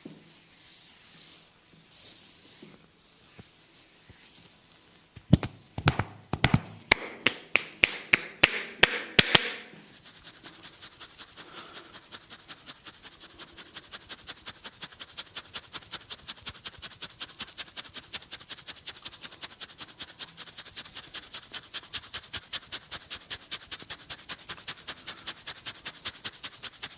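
Hands striking a person's head in a percussive massage. About five seconds in come a few seconds of loud, sharp smacks, about four a second. After that a long, even run of lighter, quicker taps follows, several a second.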